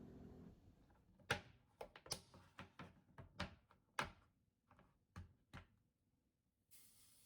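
A string of light knocks and clacks, about a dozen irregular taps, as food containers and packages are handled and set down while a refrigerator is cleared out, followed by a brief rustle near the end.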